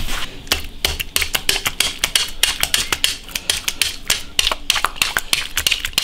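Metal needles of a spiked meat tenderizer jabbing rapidly into the rind of boiled pork belly on a wooden board: a fast, irregular patter of sharp clicks, about five or six a second.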